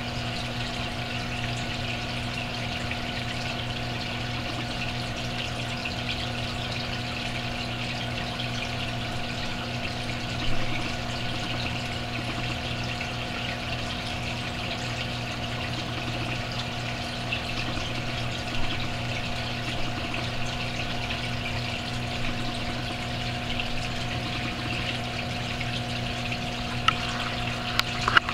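Aquarium filter pump running with a steady hum and water trickling. A brief knock sounds about ten seconds in and a few clicks near the end.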